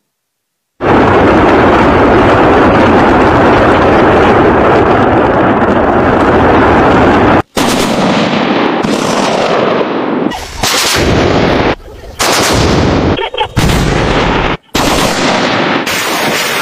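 Truck-mounted multiple rocket launchers firing salvos. A loud, dense, continuous roar of rockets launching starts abruptly under a second in. After a cut about halfway through come several shorter bits of launch noise, separated by sudden edits.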